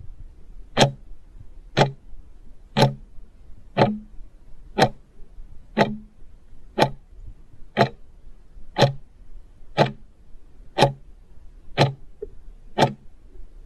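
Countdown timer sound effect ticking like a clock, one sharp tick each second, over a faint low hum.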